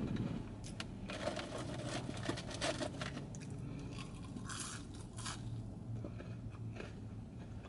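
Takeout packaging rustling and scraping with small clicks as chicken wings are taken out, then a wing being bitten and chewed, all over a steady low hum.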